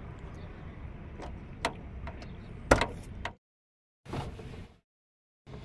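Key working the driver's door lock of a 1989 Hindustan Contessa: a few light clicks, then a sharp metallic clunk about halfway through as the lock releases, with a few smaller clicks after it. A steady outdoor hiss runs underneath, and the sound cuts out twice.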